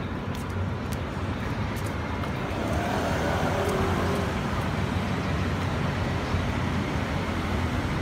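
Steady low rumble of motor vehicles in street traffic, swelling slightly about three seconds in as a vehicle passes.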